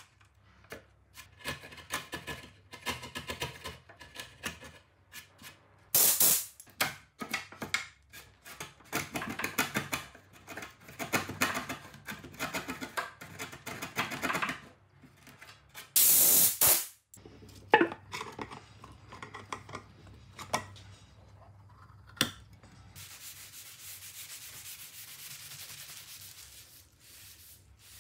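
Hand chisel paring and scraping out a notch in a softwood beam: runs of quick scratchy strokes, with two louder, harsher strokes. Near the end, a soft, steady rubbing of a cloth wiping finish onto the wooden sawhorse.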